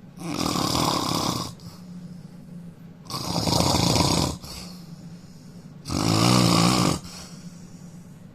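A man snoring loudly: three long snores, each lasting about a second, coming roughly three seconds apart.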